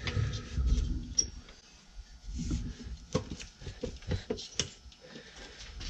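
Metal engine parts being handled: a VW Type 1 cylinder head and its surrounding tinware wiggled by hand to work the head loose. Low rumbling handling noise at first, then scattered light clicks and knocks.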